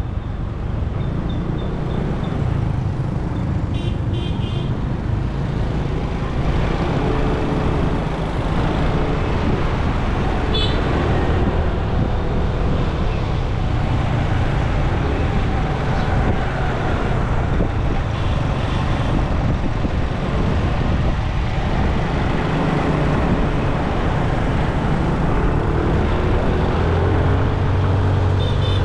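Motor scooter riding on a road, its engine running under a steady rumble of wind and road noise on the camera, with the engine pitch rising near the end as the scooter speeds up.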